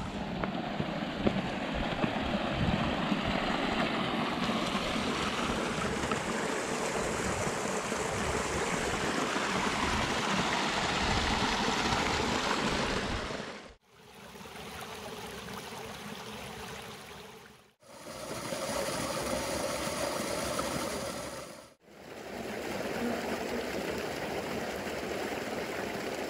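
Creek water rushing steadily over rocky cascades. The sound breaks off abruptly for a moment three times, about 14, 18 and 22 seconds in.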